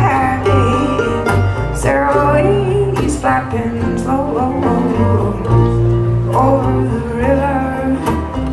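A live acoustic folk string band playing a tune together, with banjo, acoustic guitar, fiddle, mandolin and upright bass, the bass holding long notes under the melody.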